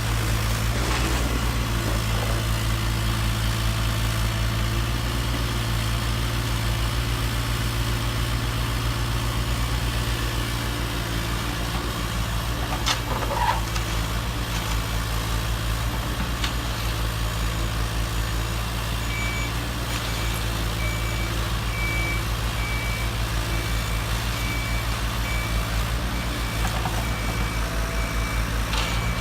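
RC model truck's diesel engine sound idling steadily with a fast even pulse. About two-thirds of the way in a reversing beeper starts and beeps repeatedly, about two beeps a second.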